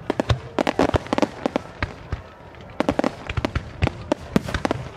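Digital starmine of aerial firework shells bursting in rapid volleys: many sharp bangs and crackles in quick succession, thinning briefly about two seconds in before a fresh cluster of reports.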